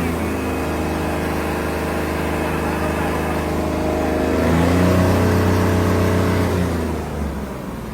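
Diesel engine of a New Holland 3630 tractor with a modified fuel injection pump, held at high revs. The revs climb higher about halfway through, then drop back near the end.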